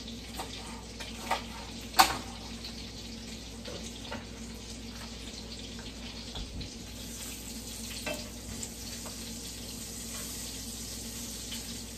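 Italian sausages frying in a skillet, a steady sizzle that gets a little stronger in the second half as they are turned. A few sharp knife knocks on a cutting board come in the first two seconds, the loudest about two seconds in.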